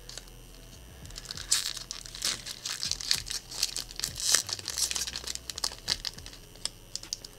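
A foil-lined Zendikar Rising booster pack wrapper crinkling and crackling as it is torn open by hand. The crackles start about a second and a half in and come thick and fast after that.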